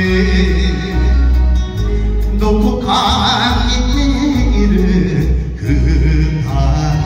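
Enka duet: a man singing into a microphone over a recorded backing track with a steady bass beat. The voice is strongest in the middle and again near the end.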